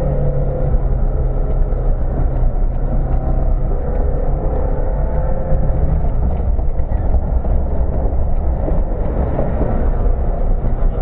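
Loud, steady low rumble of an off-road 4x4's engine working hard, heard inside the cabin as the vehicle ploughs through deep water, with water and mud splashing against the windscreen and body.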